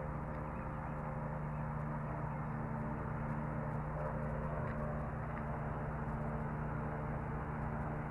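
Steady low machine hum with a constant pitch.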